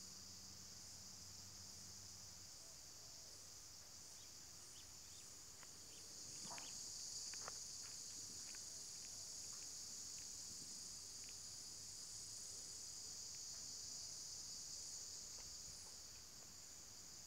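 A faint, steady chorus of insects, swelling louder from about six seconds in until near the end, with a few soft clicks a little after six seconds.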